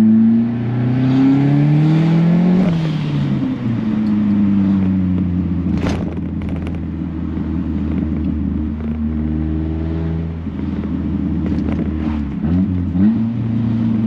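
Turbocharged 1.6-litre four-cylinder of a B13 Nissan Sentra heard from inside the cabin while driving, its note climbing under acceleration, dropping sharply about three seconds in, then climbing again with a quick dip and recovery near the end as it goes through the gears of its freshly repaired transmission. A sharp click about six seconds in.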